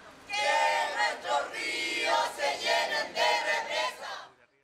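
A group of protesters chanting a slogan together in short rhythmic phrases. The chant cuts off suddenly about four seconds in.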